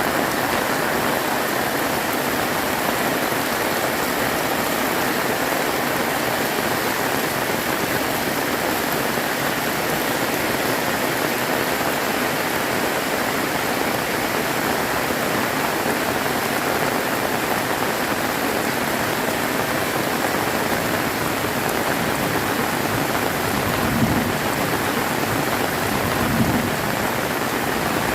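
Heavy rain pouring down steadily, a dense even hiss. Near the end there are two brief low thumps.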